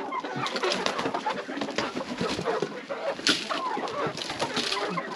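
A flock of hens clucking, many birds calling over one another, with a few short clicks.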